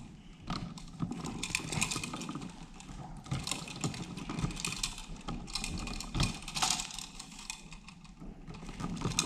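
Irregular clicking and rattling of copper wires and a plastic twist-on wire nut being handled and twisted onto a splice in a switch box.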